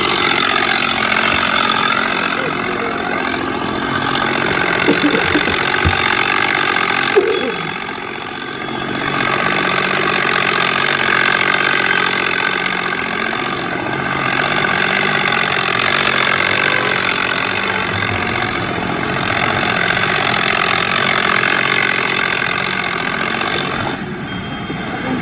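Tractor engine running steadily, with a brief dip in loudness about eight seconds in.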